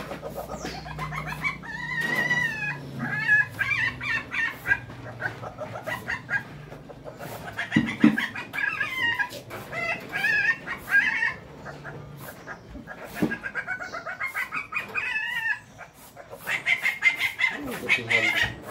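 Repeated high, wavering animal calls coming in bouts of a second or two, with a low steady hum underneath for the first two-thirds.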